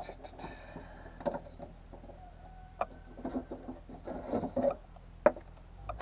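Hand-handling noises at a vehicle's open rear hatch with its trim panel off: scattered light clicks, taps and scraping on the bare hatch and its fasteners, with one sharp click a little past five seconds in.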